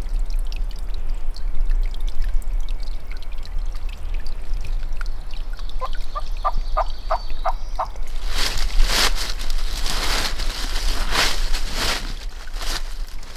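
A hunter's turkey call giving a run of about seven evenly spaced hen yelps, used to call to a gobbler. A few seconds of louder, rough, scratchy noise follows.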